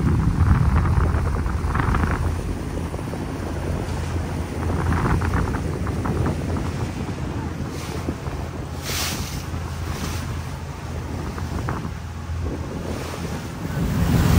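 Motorboat running on open water: a steady low engine drone with water rushing past and wind buffeting the microphone, and a few short splashes about two-thirds of the way in.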